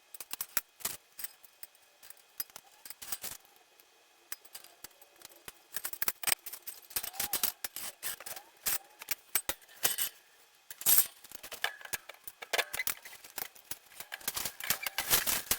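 Shelving parts clicking and clinking together as a shelf is fitted onto a rack, in quick irregular bursts of small metallic knocks and rattles.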